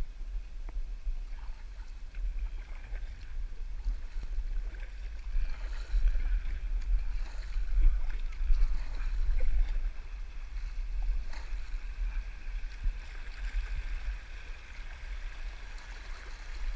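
Water rippling and splashing along a plastic kayak's hull, with occasional paddle strokes dipping in, as it runs through a shallow river riffle. Under it is a steady low rumble.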